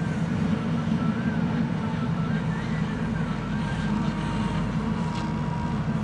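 Diesel engine of a JCB 3DX backhoe loader running steadily under load as the backhoe arm works, with a faint higher whine that rises and falls above it.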